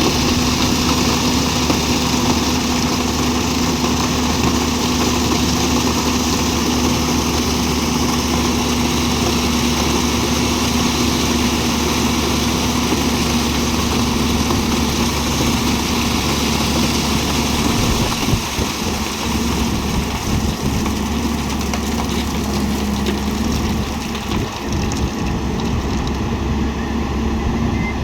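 JCB 205 excavator's diesel engine running steadily with a constant hum, dipping briefly twice in the second half.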